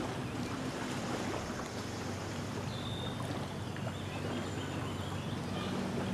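Small lake waves lapping on a sandy shore with wind, over a low steady hum. A brief high chirp sounds about three seconds in.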